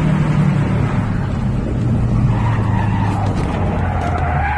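Car driving with steady engine and road noise; about two seconds in, tyres begin a long squeal as a car skids.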